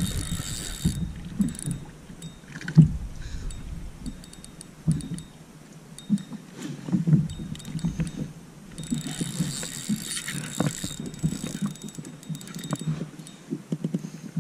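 Irregular knocks and bumps against a kayak's hull with scattered clicks as gear and fish are handled aboard, plus spells of hiss in the first second and again about two-thirds of the way through.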